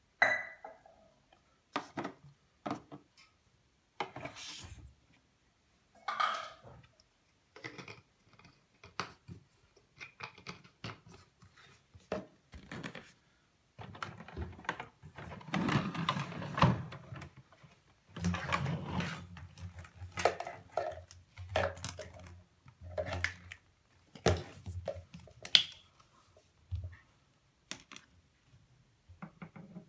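Plastic parts of a Zelmer Wodnik washing vacuum cleaner being handled with the motor off: irregular clicks, knocks and rubbing as the detergent bottle is taken off its socket, a cap is fitted, the lid is worked and the hose end is picked up.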